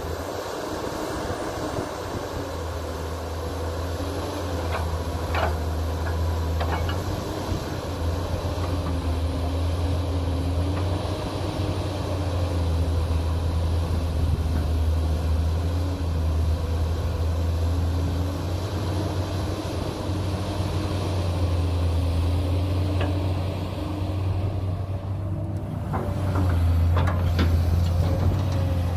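JCB 210 tracked excavator's diesel engine running steadily under digging load, its note wavering up and down as the hydraulics work. A few sharp knocks of the bucket against earth, more of them near the end.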